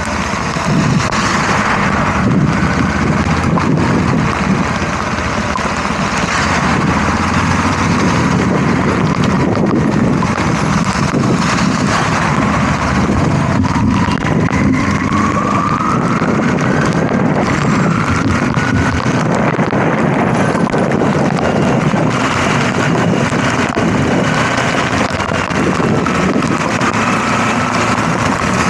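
Kawasaki KLE 250 motorcycle being ridden, its engine running under heavy wind noise on the microphone. A faint whine rises and falls in pitch about halfway through and again near the end.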